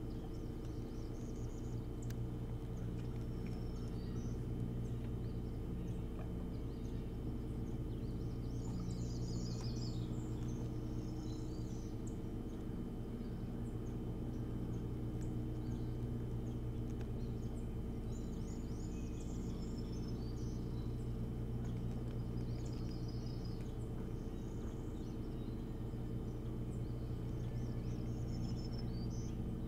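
Steady low hum of the nest-camera audio, with small birds singing short, high trills every few seconds.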